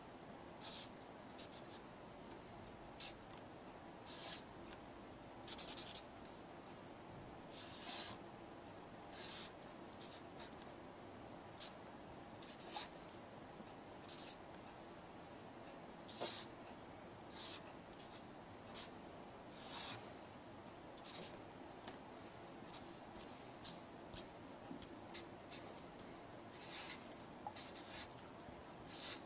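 Handwriting on paper with a pen or pencil: short scratchy strokes at an irregular pace, with brief pauses between groups of strokes.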